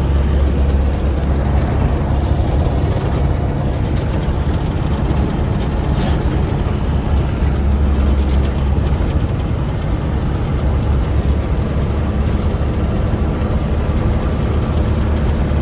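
Steady engine and road noise of a moving vehicle, a continuous low rumble heard from inside it while travelling.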